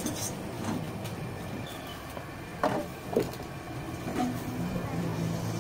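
Steady low engine hum of passing traffic, swelling near the end, with two sharp knocks about half a second apart in the middle.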